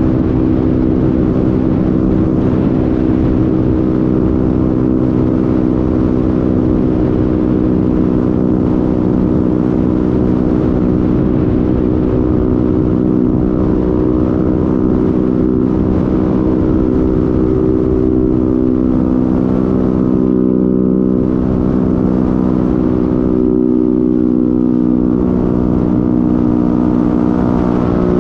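Honda MetRuck scooter's small engine running at a steady cruising speed, a constant droning note with no revving, heard from a helmet-mounted camera with wind rumbling over the microphone.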